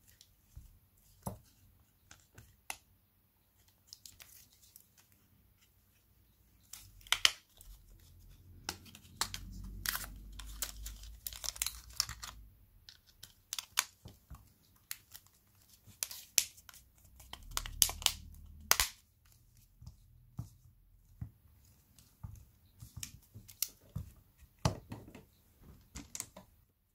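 Sharp plastic clicks and crackles, like adhesive peeling, as a Samsung Galaxy A50's display and plastic frame are handled and pressed by hand, with two stretches of low rubbing handling noise.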